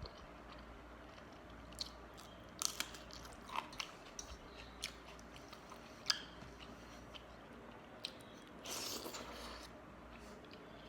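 Close-up eating sounds of a person chewing a meal of panta bhat (soaked rice) with curry: scattered sharp clicks, smacks and crunches, then a louder noise lasting about a second near the end.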